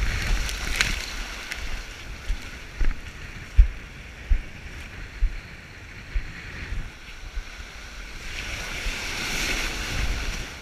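Wind buffeting the action camera's microphone and white-water surf rushing and splashing around a windsurf board, with scattered short low thumps. The rushing swells about a second in and again near the end.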